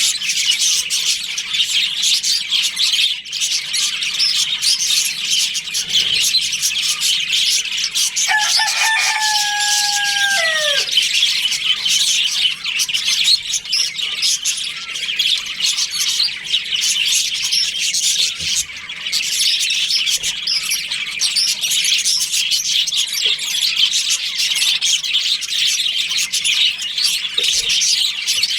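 A colony of budgerigars chattering and chirping continuously. About eight seconds in, a rooster crows once, a call of about two and a half seconds that drops in pitch at the end.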